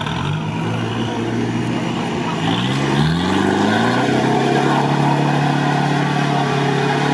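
Off-road 4x4's engine revving hard as it reverses out of a flooded mud pit. The revs climb in two steps over the first few seconds, then hold high and steady.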